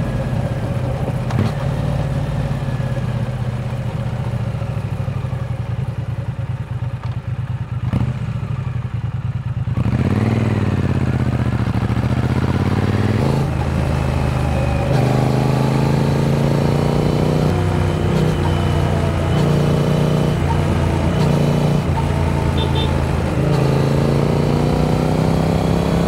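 Triumph Speed Twin 900's parallel-twin engine running under the rider. About ten seconds in, the engine pitch starts to climb and drop again several times as the bike pulls away and shifts up through the gears.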